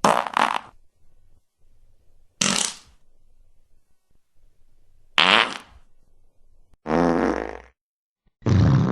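Fart sound effects: five separate short, buzzing farts in a row with brief gaps between. The third falls in pitch, and the fourth is a little longer and lower.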